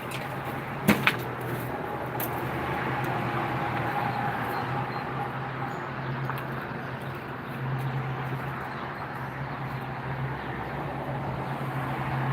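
A steady engine-like hum, with two sharp knocks close together about a second in.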